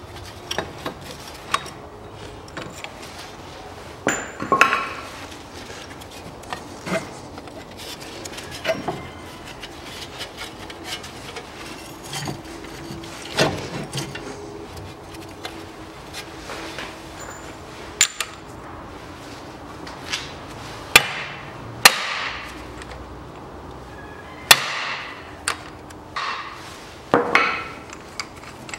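Hammer blows on the end of a seized drive shaft in a KIA Sportage's front wheel hub, knocking it loose from the hub where it has rusted in. Irregular sharp metal strikes, some ringing after them, the loudest blows coming in the second half.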